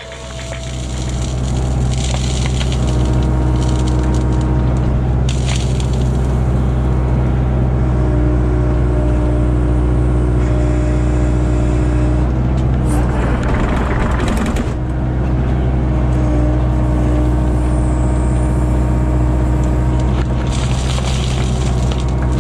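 Kubota KX057-4 mini excavator's diesel engine running steadily under hydraulic load, with a gritty crunching and scraping of soil and gravel in the bucket for a second or two past the halfway mark.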